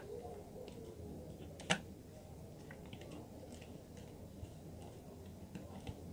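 Faint small clicks and ticks of a wire being fitted into a magnetic contactor's terminal by hand, with one sharper click about a second and a half in.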